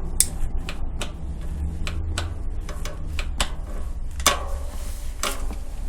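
Bicycle pedal and crank clicking irregularly, a dozen or so sharp ticks, as the pedals are pushed, over a low steady rumble. This is the ticking fault the bike came in with, which comes and goes and which the mechanic traces to the pedal.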